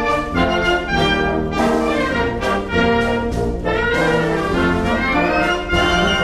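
A military wind band plays a Thai march-style piece, with trumpets and trombones to the fore. A rising run climbs through the upper parts about five seconds in.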